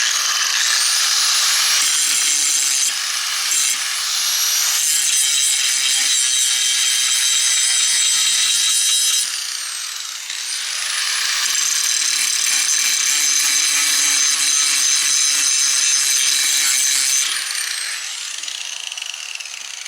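Electric angle grinder spinning up with a rising whine and grinding metal to clean up a messy weld. It winds down briefly about nine seconds in, spins back up and grinds again, then winds down with a falling whine near the end.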